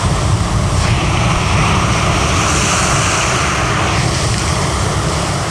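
Loud wind rumble buffeting the microphone over the steady hiss of sea waves breaking against breakwater boulders.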